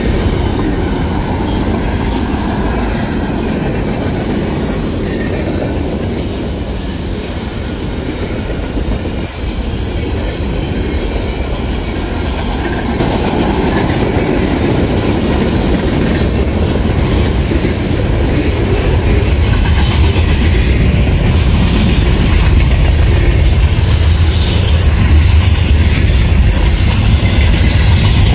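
A long freight train's cars rolling past close by: a steady rumble and rattle of steel wheels on rail, growing louder about halfway through.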